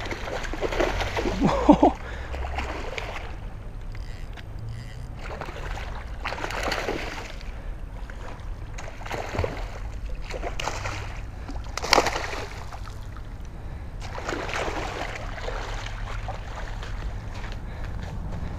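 A small hooked tarpon splashing and thrashing at the water's surface while being played on rod and reel, the splashes coming in several separate bursts. A single sharp click about two-thirds of the way through.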